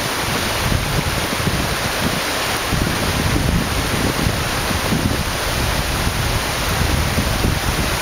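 Steady rushing of a waterfall and its cascades on a mountain river, with wind buffeting the microphone in irregular low gusts.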